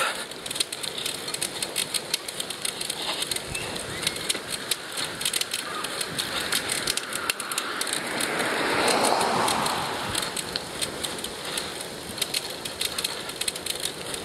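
A recumbent bicycle rolling along a rough asphalt trail, heard as a steady hiss with fine crackling on a rider-worn earpiece microphone. A louder whoosh swells and fades about eight to ten seconds in.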